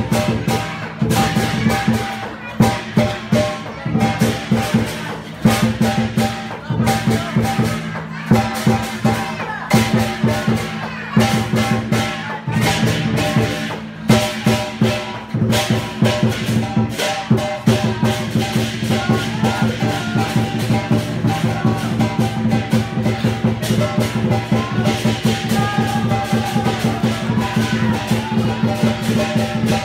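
Chinese dragon dance percussion: drum struck with cymbals and a gong in a fast, driving beat, the cymbals and gong ringing on between strikes. The beat settles into a more even pattern about halfway through.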